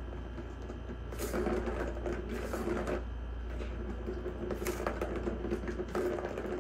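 Plastic ball rolling and rattling around the ring of a circular cat track toy as a cat bats it with its paw, in two spells: one about a second in, the other in the second half.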